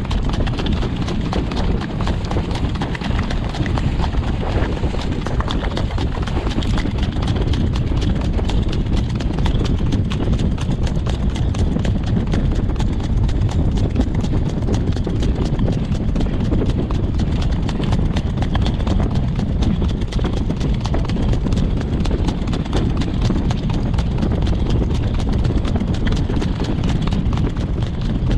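Hoofbeats of a trotter horse trotting in harness on a dirt track, a quick, even beat of hooves over a steady low rumble.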